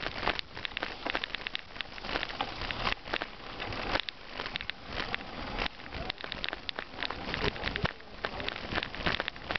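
Mountain bike tyres rolling over a gravel track: a continuous dense crackle and crunch of loose stones, full of small clicks.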